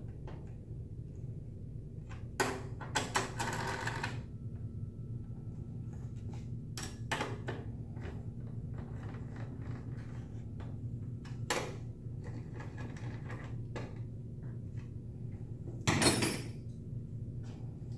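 Hand-tool work on a motorcycle's tail subframe: a T-handle Allen wrench turning bolts, with scattered metal clicks and clinks over a steady low hum. About sixteen seconds in comes a louder clatter as tools are set down on a metal tool chest.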